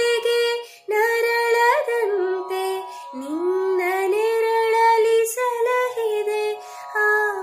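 A woman singing a Kannada song solo and unaccompanied, holding long notes and gliding between them, with a short pause about a second in.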